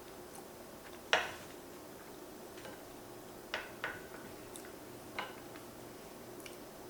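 A fork clinking against a plate while cutting pancakes: a few sharp, separate clicks, the loudest about a second in, over a faint steady room hum.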